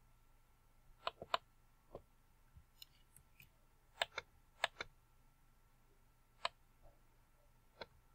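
Faint computer mouse clicks: about nine short, sharp clicks spread through, several of them in quick pairs of press and release.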